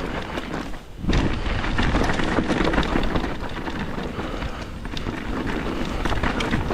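Mountain bike ridden along a trail: wind rumbling on the microphone over tyre noise on dirt, with frequent knocks and rattles from the bike. It dips briefly about a second in, then picks up again.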